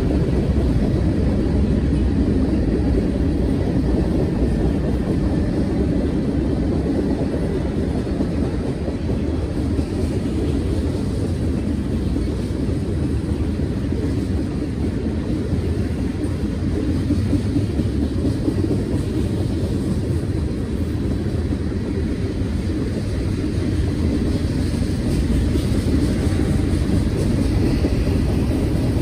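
A freight train of tank cars and covered hoppers rolling past with a steady rumble of steel wheels on rail.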